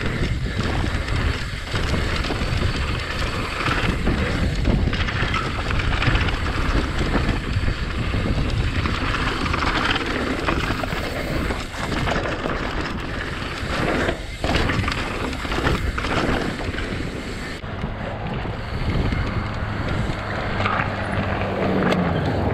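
Wind rushing over the microphone with rough, rattling trail noise from a mountain bike being ridden at speed. A low steady hum comes in near the end.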